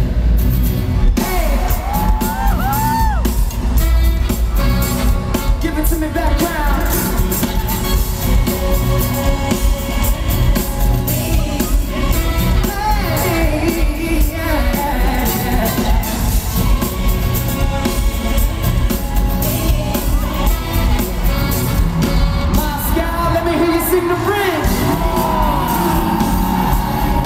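Live pop-funk band music with a brass section of trumpets, trombone and saxophone, and a male lead vocal singing over it.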